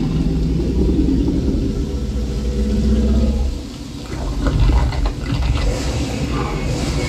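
Movie soundtrack of a Tyrannosaurus rex scene in heavy rain, played loud through a home-theater system with an SVS subwoofer and heard in the room: a deep, heavy bass rumble with rain and creature sounds on top, the rumble dropping off briefly about halfway through.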